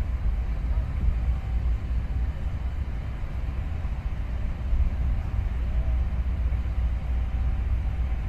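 Low, steady rumble from the ultra-large container ship HMM Hamburg under way close past the quay.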